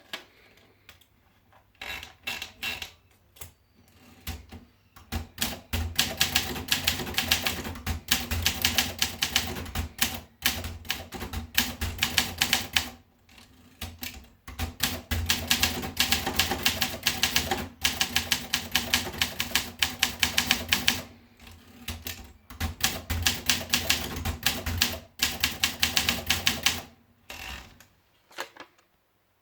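Olympia SM7 Deluxe manual portable typewriter being typed on: rapid runs of sharp key strikes in bursts, with brief pauses between runs, stopping a second or so before the end.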